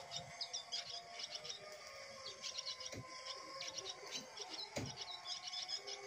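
Swallows twittering at a mud nest: quick runs of short, high chirps that come and go.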